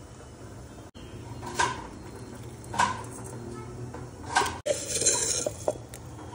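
Small steel spoons clinking against stainless steel bowls and spice tins as spices are added: three sharp clinks about a second apart. Then a short scraping rustle of a spoon scooping salt from a jar, with small clicks and one more clink at the end.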